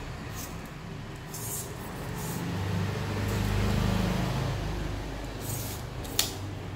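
TOTAL 5 m steel tape measure in a plastic case: faint brief scrapes as the blade is worked, then the blade retracts and its hook snaps against the case with one sharp click near the end. Under it, a low rumble swells and fades in the middle.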